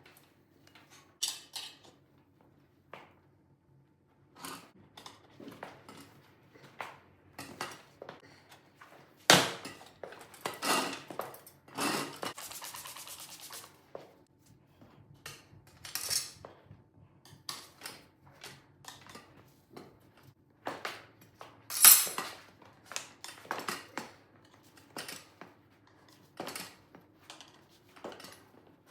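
Irregular metal clinks and knocks from tools and the wheel being handled in a workshop. Two sharper, louder knocks come about nine and twenty-two seconds in, and there is a brief rattle around twelve to thirteen seconds.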